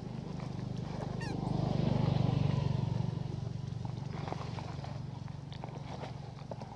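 A motor vehicle engine passing by: a steady hum that swells to its loudest about two seconds in, then fades. A brief high falling squeak comes about a second in, and light clicks and crackles of dry leaves run under it.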